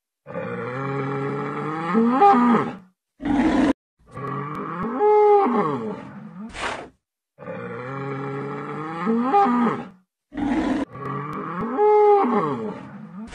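A bull bellowing four times, each call about two and a half seconds long with a bending pitch. Each call is followed by a short noisy burst.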